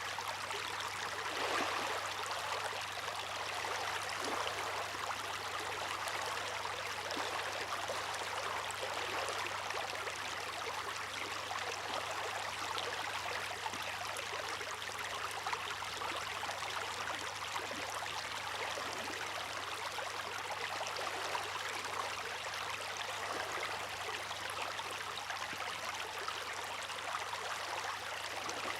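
Water rushing and splashing steadily with a fine, crackling texture. The level holds even, without the rise and fall of breaking waves.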